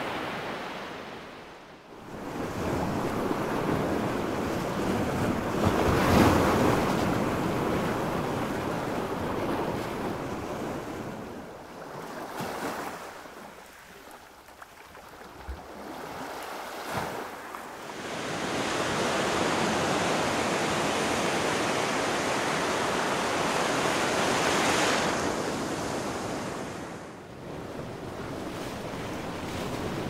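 Tropical ocean surf: waves breaking and washing up a beach, swelling and ebbing, with the biggest crash about six seconds in and a long swell wash later on.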